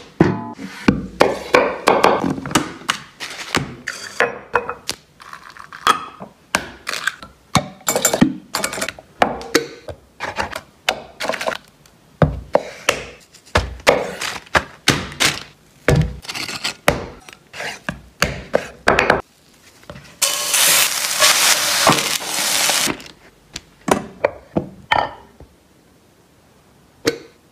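Kitchen prep sounds: a knife chopping on a wooden cutting board, in a long run of sharp knocks and thunks. About two-thirds of the way through comes a steady hiss lasting a couple of seconds, then a few more knocks.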